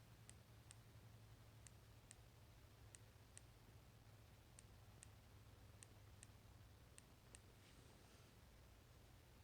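Google Pixel 3 phone giving faint, sharp clicks in pairs, six pairs in all with about a second between pairs, followed by a brief faint hiss. This is the strange sound that the owner links to a fault with the phone's fingerprint sensor and squeeze function.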